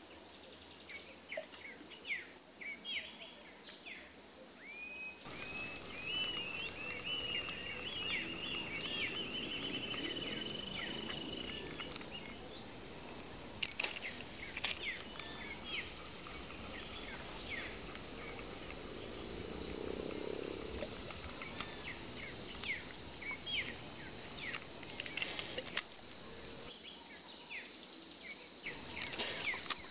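Outdoor ambience: a steady high insect drone with many short chirping calls scattered through it, over a constant background hiss.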